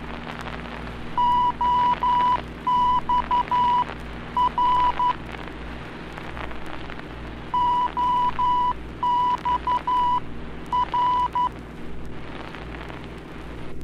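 Morse code station identifier "OXR" from the Oxnard VOR (omni range), keyed on a steady high tone over the aircraft radio and sent twice. A steady hum and static run underneath.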